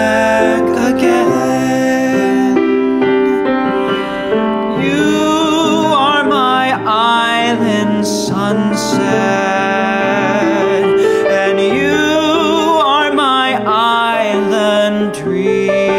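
Piano accompaniment with male singing. The voice comes in about five seconds in with long held notes, wavering with vibrato, and drops out near the end, leaving the piano.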